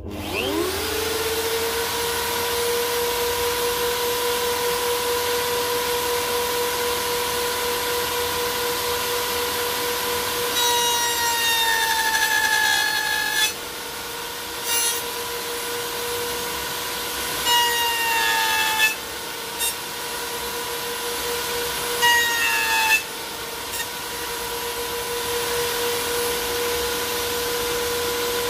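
Electric router motor switched on, spinning up within a second and then running at a steady high hum. Three times in the second half the pitch sags briefly as the bit cuts into wood, a higher cutting whine joining it, with a few sharp knocks in between.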